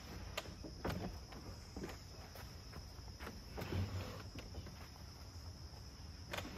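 Plywood camper extension box being handled at the tailgate: several short wooden knocks and a heavier thump about four seconds in as its hinged top is folded shut. Crickets or other insects buzz steadily at a high pitch behind it.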